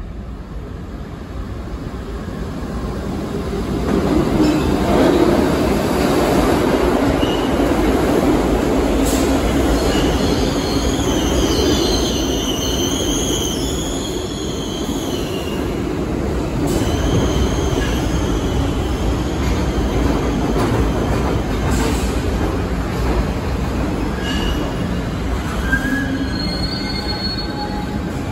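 New York City subway train pulling into an underground station: its rumble builds over the first few seconds as it enters, then high-pitched squeals come and go as it slows along the platform, with more squealing near the end as it comes to a stop.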